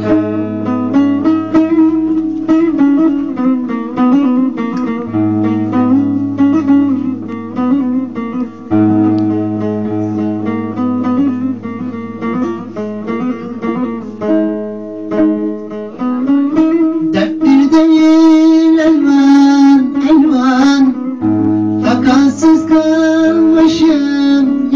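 Bağlama (saz) playing a plucked Turkish folk-song melody over a steady low drone. About two-thirds of the way through, a man's voice comes in singing with a wavering vibrato.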